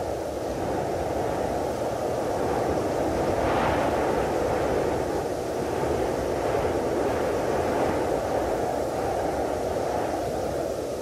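Dark ambient drone music: a steady, dense rumbling noise with hiss above it and no clear notes, swelling a little about four seconds in.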